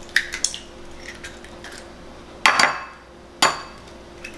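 Eggs being cracked into a bowl: sharp knocks of eggshell on the bowl's rim, two small quick ones near the start and two louder ones about two and a half and three and a half seconds in.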